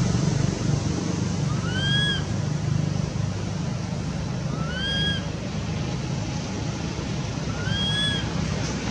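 A short whistled animal call that rises and then levels off, repeated about every three seconds over a steady low rumble of background noise.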